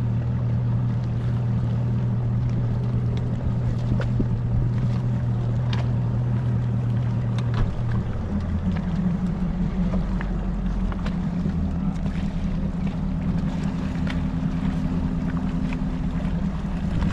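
Bass boat outboard motor running hard at speed: a steady low drone with wind and water rushing past. About eight seconds in, the engine note steps up in pitch and holds there.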